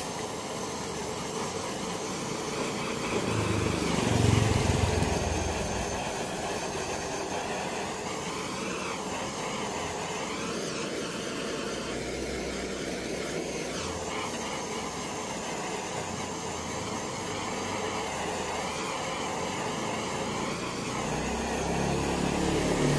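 Handheld gas torch on a gas canister burning with a steady hissing roar, heating a motorcycle exhaust header to turn the metal blue. It swells louder about four seconds in and again just before it cuts off near the end.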